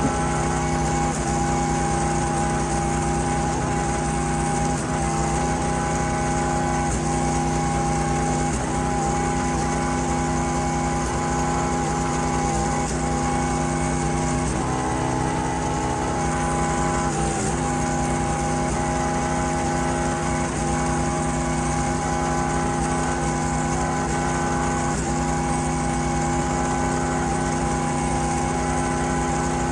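A small engine, that of the wood-processing machine, running steadily at constant speed, its pitch dipping briefly about 17 seconds in.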